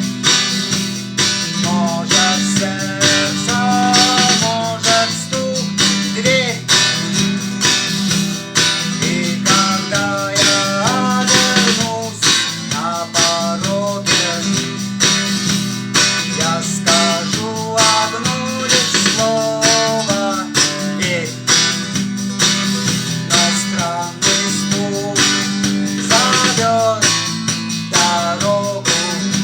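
Guitar strummed in a steady rhythm, with a melody line running over it.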